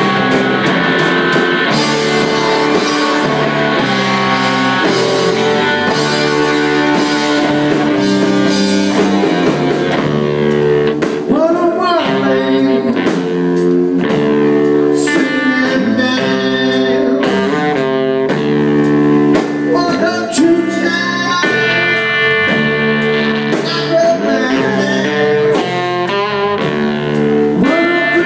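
Blues band playing live: guitar and other sustained notes, some bent in pitch, over drums keeping a steady beat.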